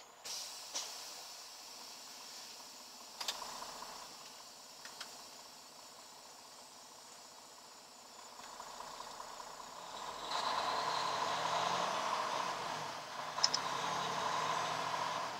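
Semi truck engine heard from inside the cab, idling quietly and then pulling away, growing louder from about ten seconds in. A few sharp clicks and knocks come through during the first part.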